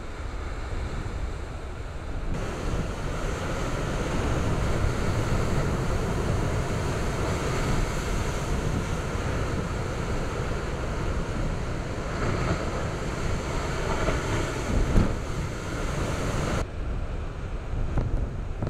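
Heavy typhoon-driven surf crashing onto a rocky coast, a dense rush of water noise with deep low rumble, and strong wind buffeting the microphone. The surf noise fills out a couple of seconds in and thins again shortly before the end.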